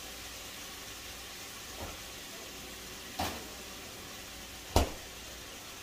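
Veggies and kielbasa sizzling in olive oil in a frying pan, a steady hiss, with three sharp kitchen knocks, the loudest about five seconds in.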